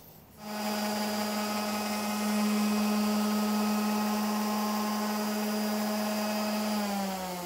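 Hand-held electric sander starting up and running with a steady hum while sanding a hardwood lip banding flush with a plywood shelf. Near the end it is switched off and its pitch falls as it winds down.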